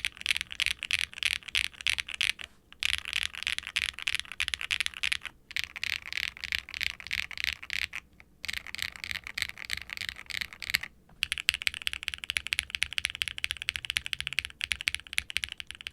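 Typing on a 75% aluminium mechanical keyboard with clacky Keygeek M1 linear switches and doubleshot ABS keycaps. The keys clack in quick runs, broken by brief pauses. From about 11 seconds in the clatter becomes faster and more even.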